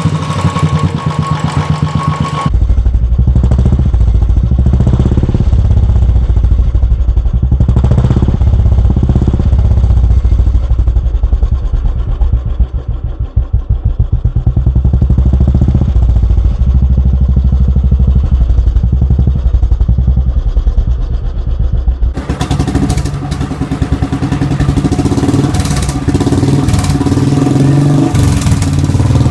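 Royal Enfield single-cylinder motorcycle engine running through aftermarket silencers, its exhaust thumping steadily. The exhaust sound changes abruptly twice as different silencers follow one another.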